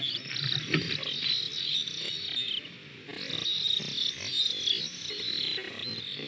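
Black stork chicks begging on the nest at feeding time: a high, continuous call that breaks off briefly about three seconds in and then resumes. Rustling from their flapping wings runs underneath, with a few sharp clicks near the start.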